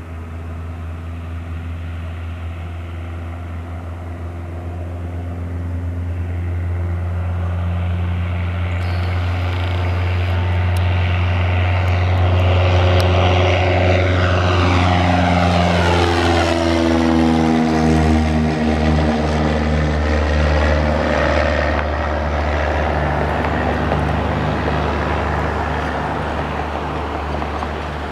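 1981 Cessna 172P Skyhawk's four-cylinder Lycoming engine and propeller at full takeoff power, growing louder as the plane rolls and lifts off. Its pitch falls as it passes close by about halfway through, and the sound eases off as it climbs away.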